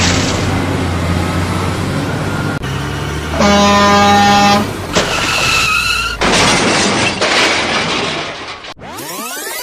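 Spliced vehicle sound effects: a steady engine rumble that cuts off abruptly, then a horn blast of about a second, followed by a shorter higher-pitched toot and a stretch of hissing noise, with sweeping rising and falling whooshes near the end.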